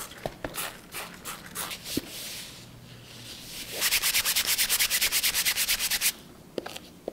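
Scrubbing inside the fabric lining of a makeup bag: scattered rustles and clicks as it is handled, then about two seconds of fast, even back-and-forth strokes, about ten a second, as the dirty lining is scrubbed clean.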